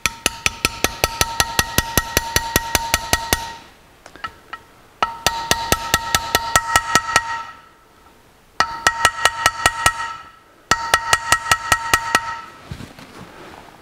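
Small hammer tapping a punch in rapid light blows, with a metallic ring, driving the accelerator pump discharge guide down flush into a Rochester 4-jet carburetor body. The taps come in four quick runs of about eight a second, with short pauses between them.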